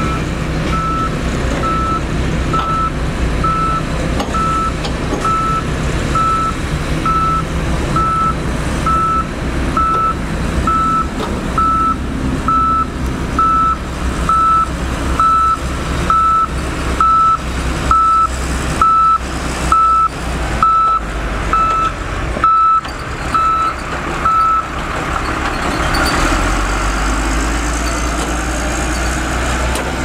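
Motor grader's reversing alarm beeping steadily, about two beeps a second, over its diesel engine running. The beeping stops a few seconds before the end, and the engine's low note then gets heavier.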